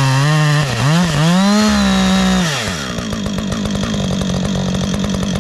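Husqvarna 562 XP two-stroke chainsaw cutting into a log round, its engine pitch wavering and dipping under load. About two and a half seconds in the throttle is let off and the saw drops to a steady idle.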